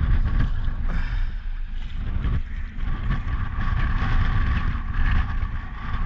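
Strong wind buffeting the microphone on a sea kayak, with wind-driven chop washing around the boat.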